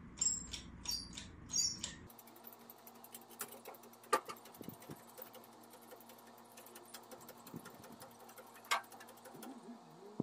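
A car-body rotisserie turning a stripped VW Beetle body shell. It gives three short squeaks in the first two seconds, then faint metallic ticking with two sharper clicks as the body rolls over.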